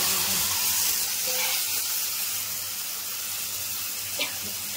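Masala paste sizzling as it hits hot oil in an iron kadhai of small whole eggplants, loudest at first and then settling into a steadier, softer sizzle. A single short click about four seconds in.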